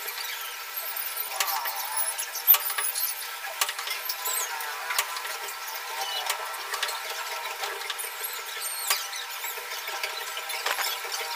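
Hand screen printing: squeegee and hinged screen frame squeaking and scraping, with irregular clicks and taps as cards are laid down and lifted.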